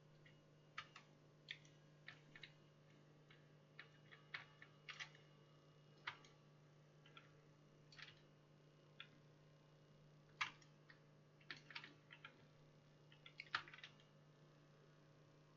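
Faint, irregularly spaced clicks of a computer mouse, about twenty over the stretch, over a steady low electrical hum.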